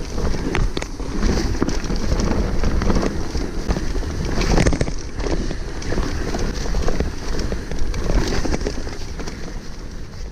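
Mountain bike riding down a rough grassy and stony trail, picked up by a handlebar-mounted camera: wind buffeting the microphone over a low rumble of tyres on the ground, with frequent small rattles and knocks from the bike.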